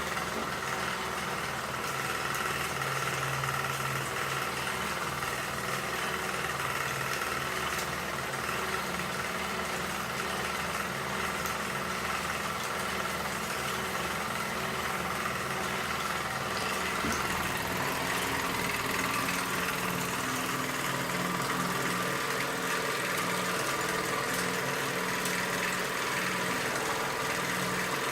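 Antique toy steam engine running steadily and driving a model accessory, a whirring mechanical hum with a steady pitch that shifts to a new, higher pitch about two-thirds of the way through.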